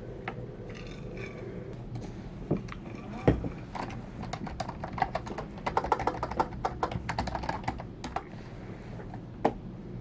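Typing on a computer keyboard: a dense run of quick key clicks in the middle, with scattered keystrokes either side and a single louder thump about three seconds in.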